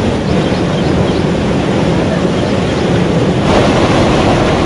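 Floodwater rushing out of the culvert outlets of a concrete check dam: a loud, steady rush of water. About three and a half seconds in, the sound changes abruptly and becomes brighter and hissier.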